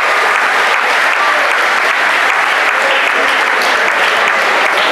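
Audience applauding, a dense patter of clapping with a few voices calling out over it.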